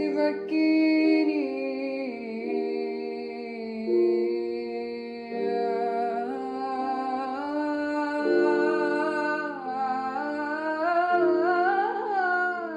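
Wordless hummed vocal music: layered held voices that change chord every second or two, with a wavering melody above that rises to a peak near the end.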